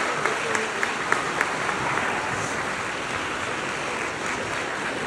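Congregation applauding: many hands clapping together in a dense, steady patter that eases off slightly toward the end.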